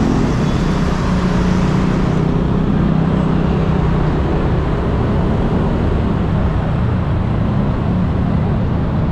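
Yamaha Aerox scooter's single-cylinder engine running steadily under way, a low hum beneath a steady rush of wind and traffic noise. The highest hiss thins about two seconds in.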